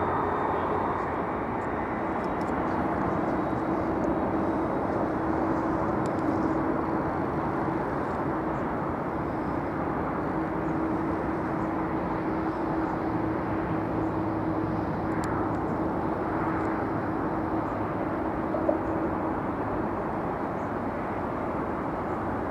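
Jet airliner engines running steadily, with a faint held hum through most of the sound.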